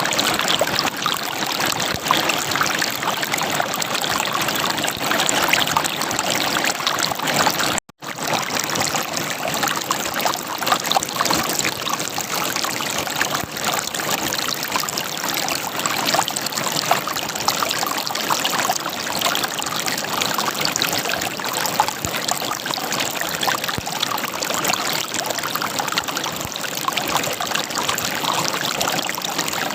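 River water gurgling and running over rocks in a steady rush. The sound drops out for a split second about eight seconds in.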